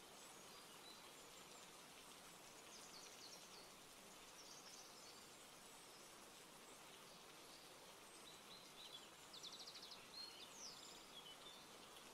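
Near silence: faint steady background hiss with a few faint, high chirps and short rapid trills, like distant birds, most of them in the second half.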